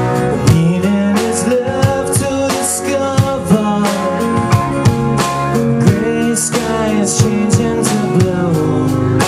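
Live rock band playing: a drum kit keeps a steady beat under electric and acoustic guitars, with a man singing lead.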